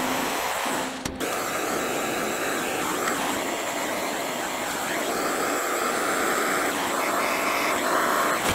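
Handheld gas torch burning with a steady hissing roar as it heats a copper outlet port for soft-soldering onto the radiator tank. The sound drops out briefly about a second in.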